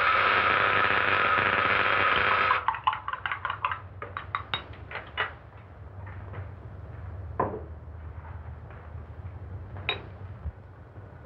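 Boxed electrical apparatus buzzing loudly, cutting off about two and a half seconds in and breaking into a run of rapid clicks that slow and die away. Scattered light clinks and knocks follow, over the steady hum and hiss of an old film soundtrack.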